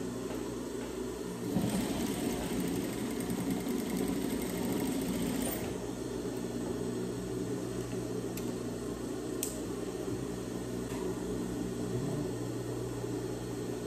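Industrial sewing machine stitching a seam through pinned cotton fabric for about four seconds, starting about a second and a half in and then stopping, over a steady low hum. A few light clicks follow.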